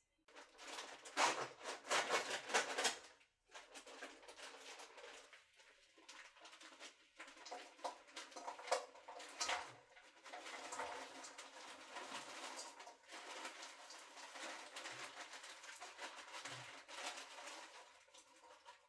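Crinkling plastic bag of frozen cut broccoli as the pieces are poured out, with many small clicks and taps of florets landing in a nonstick pan. The loudest crinkling comes in the first few seconds.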